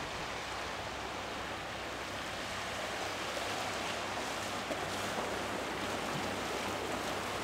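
Steady wash of sea and wind along the shore, an even hiss without distinct events.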